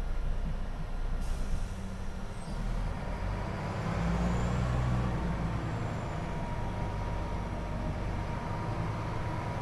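Scania L94IB bus's engine running as the bus drives, heard from inside the passenger cabin as a low rumble that grows louder about four seconds in. A short hiss of air comes about a second in.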